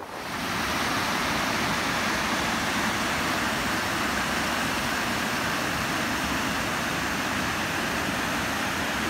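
Small waterfall on the Gila River pouring over rocks into a pool: a loud, steady, even rush of water.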